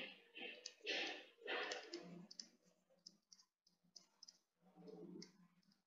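Faint clicks and light scratches of a stylus writing on a pen tablet, with short sharp ticks at irregular intervals.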